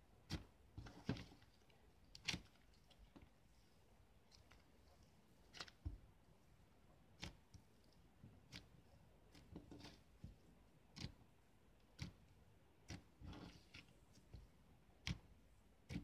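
Thick taffy slime being pressed and kneaded by hand, giving irregular sticky clicks and pops, roughly one a second with a few quick clusters.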